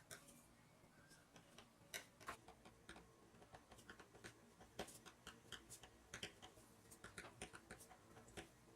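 Faint, irregular light clicks and taps of plastic food packaging and containers being handled.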